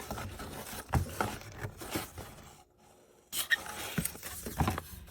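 Plastic model kit parts and packaging being handled: rustling and scraping with scattered light clicks and knocks, pausing briefly about halfway through.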